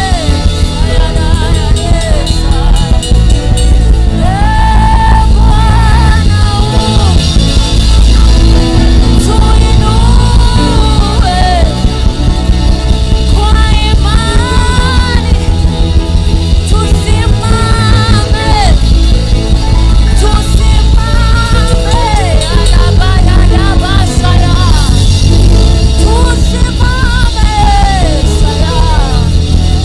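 Live gospel worship music: a choir of voices singing together over electric bass guitar and keyboard, with a strong, steady bass line.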